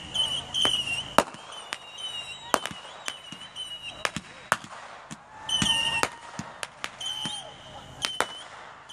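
Fireworks going off: sharp bangs and crackles at irregular intervals, the loudest about a second in. Several high whistling fireworks sound in short spells between them, one rising in pitch about five and a half seconds in.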